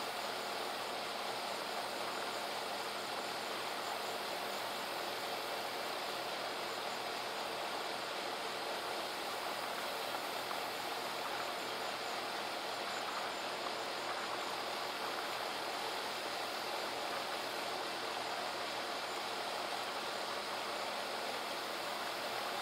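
A steady rushing noise, even and unchanging, with a faint high ticking repeating on top of it.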